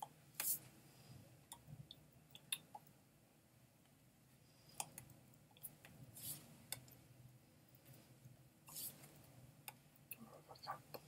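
Near silence broken by scattered faint clicks and a few brief swishing rustles from hands and sleeves moving while signing.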